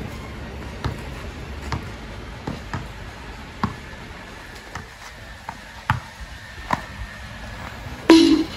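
A basketball dribbled on an outdoor hard court: single sharp bounces roughly once a second. Near the end the shot hits the hoop with a much louder ringing clang.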